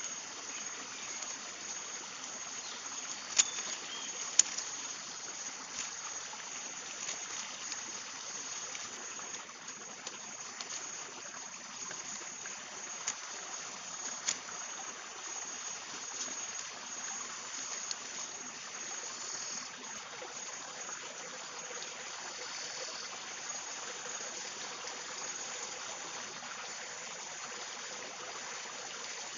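Steady rush of a forest stream, with a few sharp clicks in the first half as the ban-ban plant strips of the fish trap are handled and woven.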